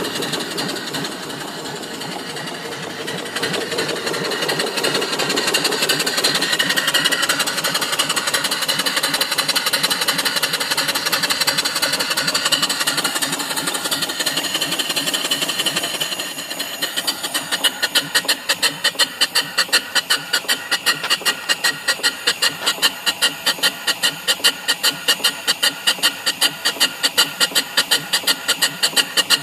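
Home-built single-cylinder live-steam mill engine running under steam with a steady mechanical clatter. From about halfway on, its exhaust beats come through loud, quick and perfectly even, several a second.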